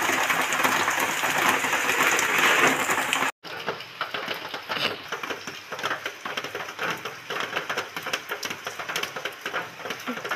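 Torrential rain falling on a paved courtyard and foliage, a dense steady hiss. After an abrupt cut about three seconds in, the rain is quieter, with many separate drops pattering.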